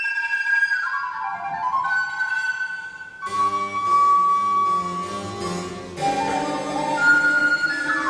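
Recorder playing slow held notes in a contemporary chamber piece, the line stepping down at first. About three seconds in, a lower accompanying instrument enters beneath it.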